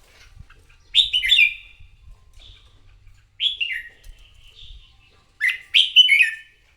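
Red-whiskered bulbul singing: three short, loud phrases of quick falling notes, about a second in, in the middle and near the end, with softer chirps between.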